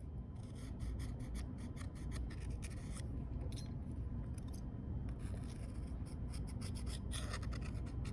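A small hand tool scraping and picking along the edge of a phone's frame, making a rapid, uneven run of light scratches and ticks. It is clearing dust and debris from the frame so the new display seal can sit flat.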